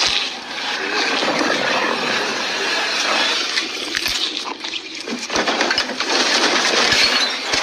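Loud, wet chewing and tearing of food by a man eating ravenously. About five seconds in this gives way to rustling and rummaging through a plastic trash bag.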